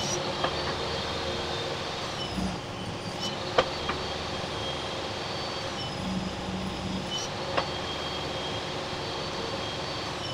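Table saw running and ripping thin strips off a walnut board. The blade's high whine dips in pitch and recovers twice as it cuts, with a couple of sharp knocks.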